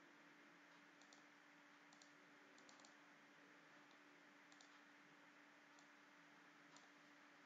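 Faint computer mouse clicks and keyboard keystrokes, singly and in small quick groups, over a low hiss and a faint steady hum.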